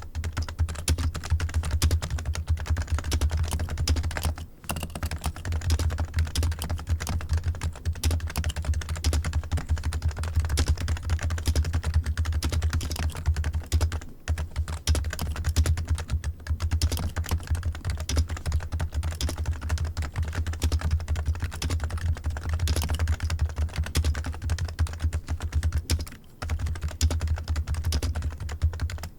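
Computer keyboard being typed on: a fast, continuous run of keystrokes with a few brief pauses, about four, fourteen and twenty-six seconds in.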